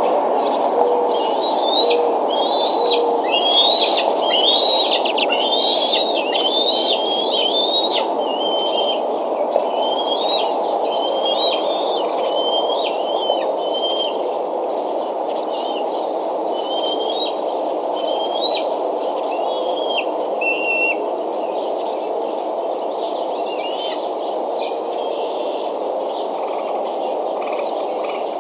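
A bird calling over and over, about one short, high, rising note a second, growing fainter and stopping about twenty seconds in, over a steady low rushing background.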